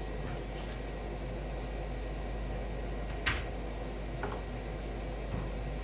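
Steady fan-like hum in a small room, with one sharp click a little over three seconds in and a softer click about a second later.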